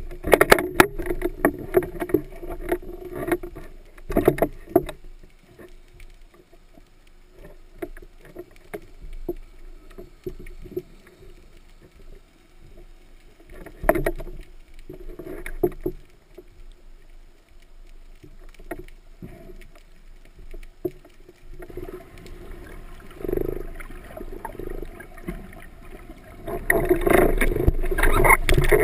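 Sea water sloshing and splashing around an underwater camera as a spearfisher swims at the surface, with scattered sharp knocks and clicks. Busiest at the start, quieter in the middle, and a louder rush of water near the end.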